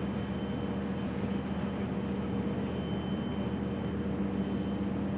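Steady mechanical hum with a faint high whine running underneath, unchanging throughout.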